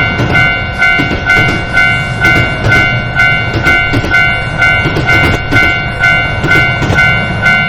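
Japanese railroad crossing warning bell ringing 'kan kan', a two-tone ding repeating about twice a second, over the steady low rumble of a passing train.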